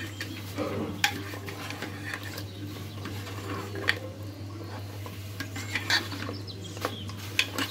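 A steel ladle stirring mutton and yogurt in a metal pot, scraping and knocking against the sides with a few sharp clinks, over a steady low hum.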